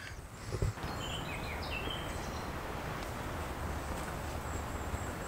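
A knock from the camera being handled, then a few short, high bird chirps over a steady low outdoor rumble.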